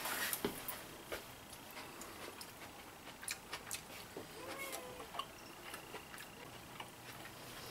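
A person chewing a mouthful of food: faint, scattered mouth clicks and smacks.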